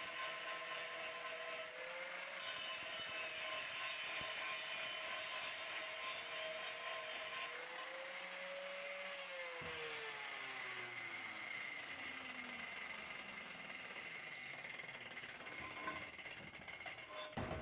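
Power tool's electric motor running with a steady whine and a hiss over it. About ten seconds in it is switched off and spins down, its pitch falling as it slows, with a couple of knocks near the end.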